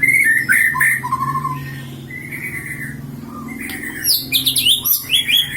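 Caged songbird chirping and twittering: a few short whistled chirps at first, then a quieter stretch, then a quick run of rapid high chirps from about four seconds in.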